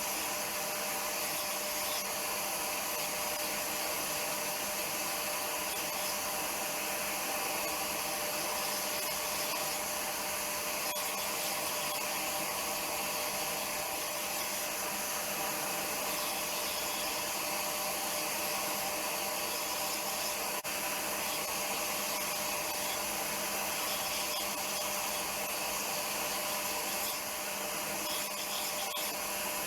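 An electric power tool runs steadily under load, sanding or grinding with a constant whine over a rasping hiss.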